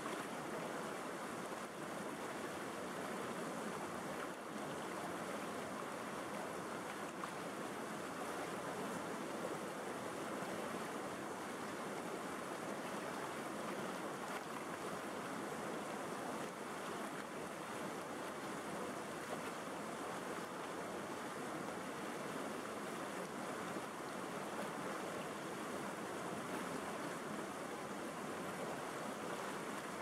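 River rapids rushing steadily over rocks, a constant even roar of white water.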